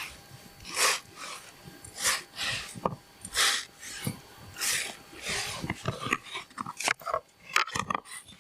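An animal breathing and sniffing in short hissing puffs, roughly one a second, with a few sharp clicks near the end.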